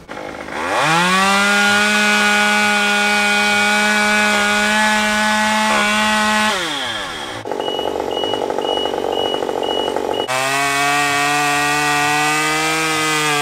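Stihl MS 193T two-stroke top-handle chainsaw revved to a high, steady whine about a second in, held for some five seconds, then let drop. After a few seconds of hiss with a faint, fast, high beeping, the saw runs again at a lower steady pitch while cutting into a tree trunk.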